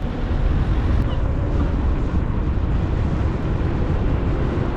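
Wind buffeting a GoPro's microphone: a dense, low rumble that comes in abruptly at the start and keeps up throughout.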